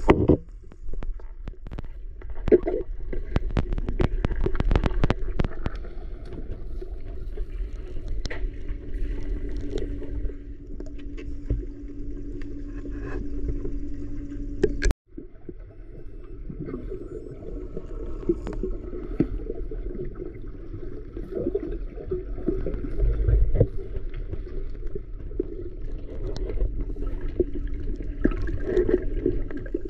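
Muffled underwater sound of a swimming pool picked up by a submerged camera: a steady low rumble of moving water, with a run of sharp clicks and taps in the first few seconds and a faint steady hum in the middle. The sound cuts out for a moment about halfway through, then the underwater rumble resumes.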